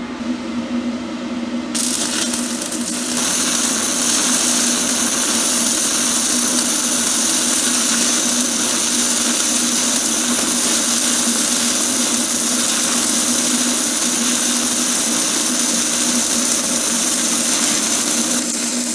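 Stick (MMA) welding arc of a 2.5 mm basic 7016 electrode laying a vertical-up second pass: a steady hiss with a low hum under it. It grows louder two to three seconds in and cuts off just before the end as the arc is broken.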